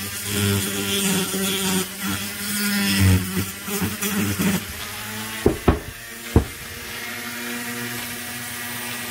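Handheld rotary tool spinning a coarse-grit sanding drum inside a transfer port of an Echo CS-670 aluminium cylinder, a steady buzzing whine that wavers as the drum bites, smoothing ridges in the port. Two sharp knocks come a little past halfway, then the tool runs free with a quieter, steadier hum.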